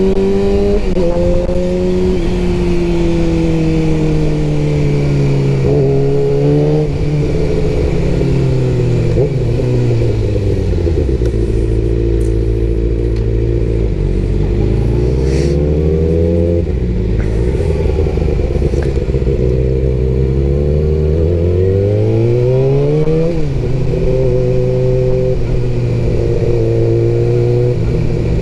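Sport motorcycle engine heard from the rider's seat at town-traffic pace. The engine note falls as the bike slows and runs low and steady for a while. It then climbs twice under throttle, the second climb ending in a sharp drop about two-thirds of the way through, and settles into an even cruise near the end.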